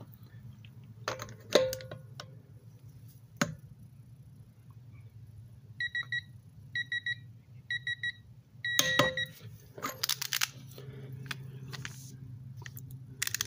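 Quinn digital torque adapter beeping in short repeated double beeps, about five in a row, as a half-inch click-type torque wrench is pulled through it on a wheel lug nut. Sharp metallic clicks and knocks from the wrench and socket come before and after the beeps.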